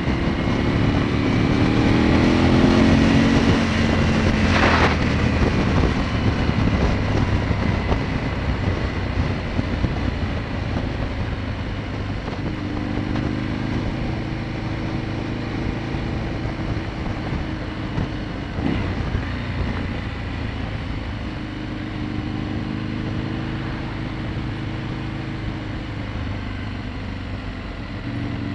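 An Aprilia Tuono motorcycle's engine under way, heard from on the bike together with wind rush. Its note climbs over the first few seconds as it accelerates, then holds at a steady cruise, with a brief sharp rush about five seconds in.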